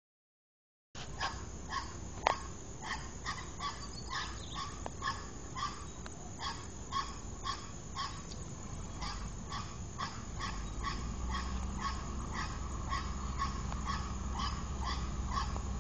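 A dog barking over and over, about twice a second, starting a second in. From about ten seconds in, the low rumble of an approaching train grows steadily louder beneath the barking.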